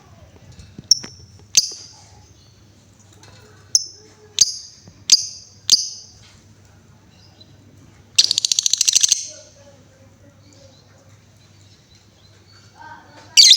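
Female lovebird calling: a string of six sharp, high chirps in the first six seconds, then a rapid rattling trill lasting about a second, and one more loud chirp at the very end.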